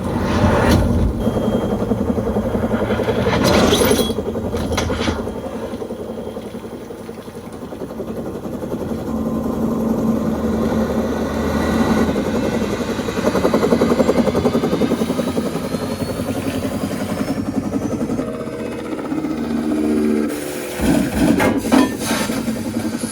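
Film sound-effects track of a Huey helicopter: rapid rotor-blade thwopping and engine running, with a faint rising whine partway through. Several sharp loud hits land near the start, about four seconds in, and near the end.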